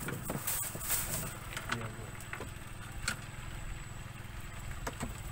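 Small boat's engine running steadily as a low, rapidly pulsing rumble, with a few short clicks on top.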